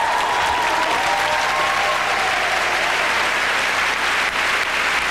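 Audience applauding steadily, with the tail of music fading out in the first second or so.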